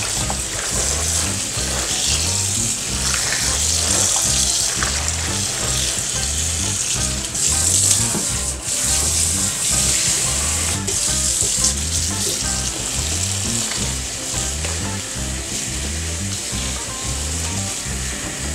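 Kitchen faucet running steadily onto collard greens in a colander in a stainless steel sink, with hands turning and rinsing the wet leaves. Background music with a steady beat plays underneath.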